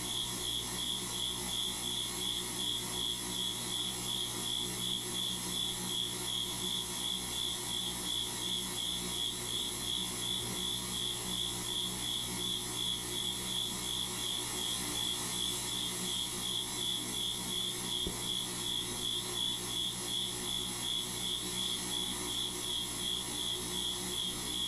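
Steady, even high-pitched pulsing, about two to three pulses a second, over a constant low hum and hiss.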